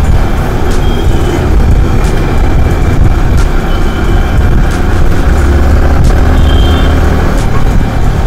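Yamaha R15M motorcycle's single-cylinder engine running on the move, under a heavy, uneven rumble of wind on the microphone.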